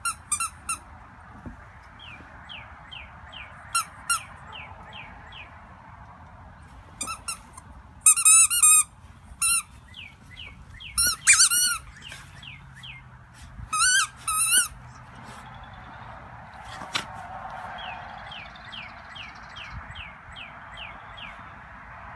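A squeaky toy ball being chewed by a Border Terrier puppy: short, high squeaks in irregular clusters, some drawn out for about half a second as the jaws squeeze it.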